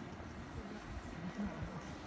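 A car coming slowly up a paved road, a low engine and tyre rumble growing louder, over faint outdoor background noise.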